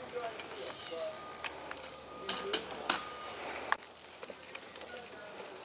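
Steady, high-pitched insect chorus, a continuous buzzing drone, that drops in level suddenly about two-thirds through. A few sharp clicks are heard near the middle.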